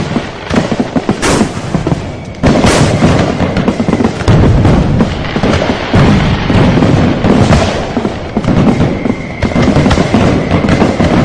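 Fireworks display in full swing: a continuous barrage of overlapping booms and crackling bursts, heavier low booms from about four seconds in.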